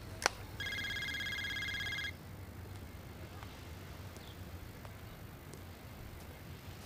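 A sharp click, then a handheld phone's electronic ring: a rapid fluttering trill lasting about a second and a half.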